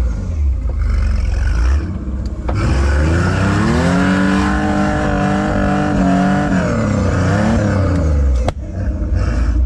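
Rock crawler's engine rumbling, then revving up about three seconds in, holding high for a few seconds and dropping back. A sharp knock comes near the end.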